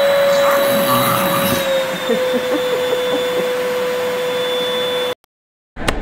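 Vacuum cleaner running, with a puppy's tongue held in the hose nozzle: a steady suction whine and rush that dips slightly in pitch about two seconds in. It cuts off suddenly about five seconds in.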